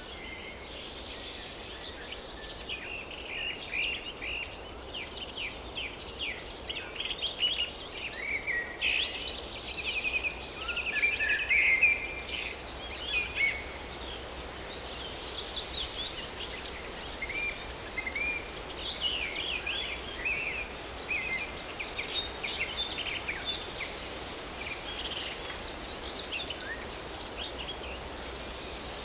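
Forest ambience: several songbirds chirping and trilling over a steady background hiss, busiest and loudest in the first half.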